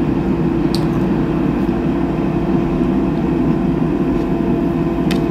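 Steady mechanical hum of a running appliance, with a couple of light clicks about a second in and near the end.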